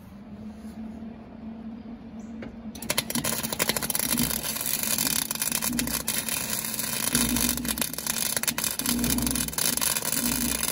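A low steady hum, then about three seconds in the arc of a wire-feed welder strikes and crackles and sizzles steadily, full of fine spattering clicks, as a muffler is welded onto the bike.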